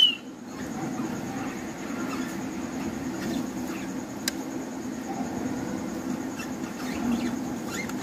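Budgerigar chicks chirping: one loud, short, falling squeak at the start, then scattered faint short chirps, over a steady low hum. A single sharp click about four seconds in.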